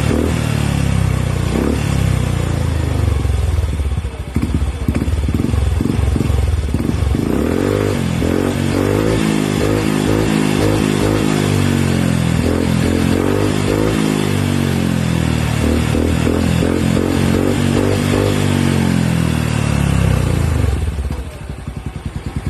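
Yamaha Mio 125 scooter's single-cylinder engine running through an Exos X6 aftermarket power-pipe exhaust, revved up and down several times, then dropping back to a pulsing idle near the end.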